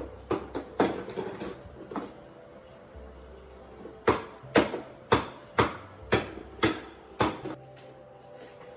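Sharp taps and knocks on a wooden board as a thin sheet of dough is folded and rolled up by hand. There are a few irregular knocks in the first two seconds, then a steadier run of about two a second from around four seconds in to about seven and a half.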